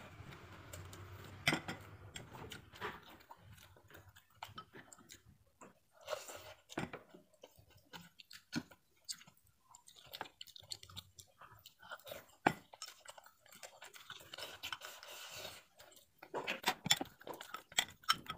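A person chewing a mouthful of food, with occasional sharp clicks of wooden chopsticks against a ceramic rice bowl.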